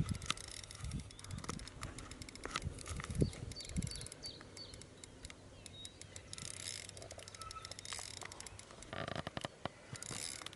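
Small birds chirping in open country, with scattered clicks, a few low thumps in the first few seconds, and two short rushing bursts of noise later on.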